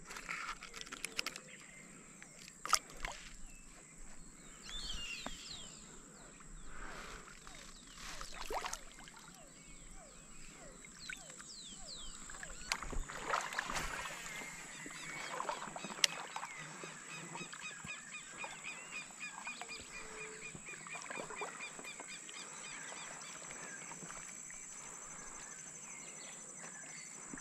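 Birds calling over marshland in short, falling chirps, with a regular pulsing call in the middle part. A steady high whine runs underneath, and a few sharp clicks come through.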